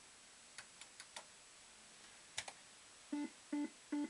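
Bell Fruit 'The Bandit' System 83 fruit machine: a few light clicks, then about three seconds in a run of four identical electronic beeps, evenly spaced about 0.4 s apart.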